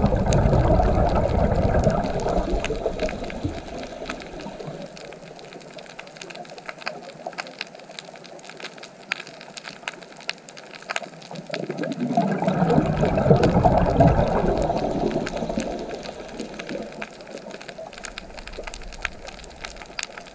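Underwater recording: a scuba diver's exhaled bubbles rush past the microphone twice, at the start and again about twelve seconds later, each lasting a few seconds. Between them a steady crackle of small clicks continues.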